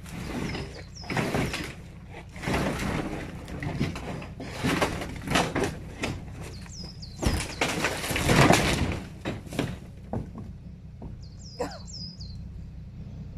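Repeated irregular crashes, cracks and clattering of something being smashed and broken apart, loudest about eight seconds in, with a bird chirping a few times.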